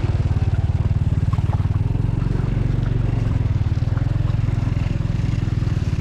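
Small motorcycle engine running steadily at low speed, heard from on the bike, with a few faint knocks as it rides over a rough, muddy dirt track.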